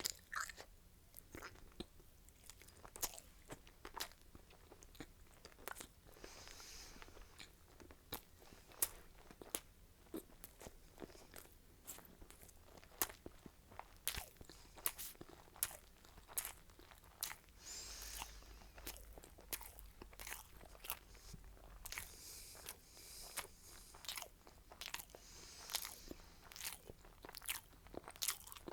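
Close-miked chewing and biting of crunchy food: an irregular run of crisp crunches and mouth clicks.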